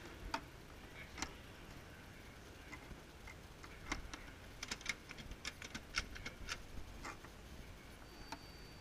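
Sharp clicks and taps from a hand working the slots of a Dallmayr coffee vending machine, with a quick run of clicks in the middle. Near the end comes a short, high electronic beep.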